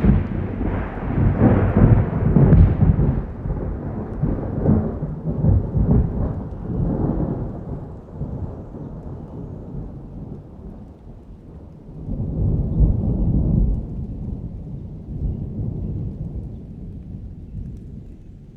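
Thunder rumbling in a summer rainstorm, with rain falling. A long rolling rumble fades away over the first several seconds, and a second rumble swells about twelve seconds in before dying off.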